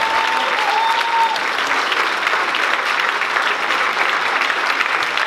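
Congregation applauding steadily, with a voice calling out over the clapping in the first second or so.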